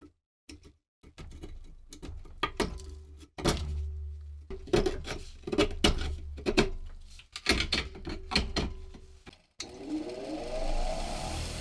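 Steel hand file and pick scraping rust off the iron socket of a Civil War bayonet, in uneven strokes with sharp clicks. About nine and a half seconds in, a bench grinder motor starts, its whine rising as the wheel spins up and then running steadily.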